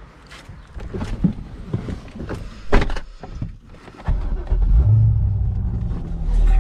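Someone getting into a Chevrolet Corvette C6: knocks and rustles, with one loud thud a little before three seconds that fits the door shutting. About four seconds in, the V8 engine starts, flares briefly and settles into a steady low idle.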